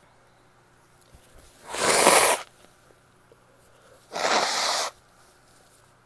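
A woman sneezing twice, about two seconds apart; the first sneeze is the louder.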